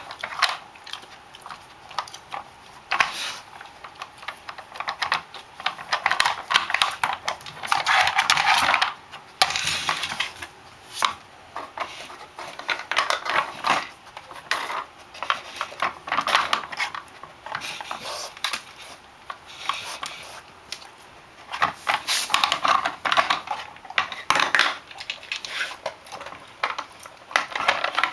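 Nina Ottosson Dog Tornado plastic puzzle toy clattering as a dog noses and paws at it, knocking at its plastic bones and layers. Irregular clicks, knocks and rattles, with louder bursts of rattling now and then.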